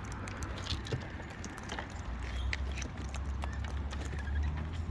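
Irregular light clicks and taps from wild cockatoos feeding and moving about close to the microphone, over a steady low rumble.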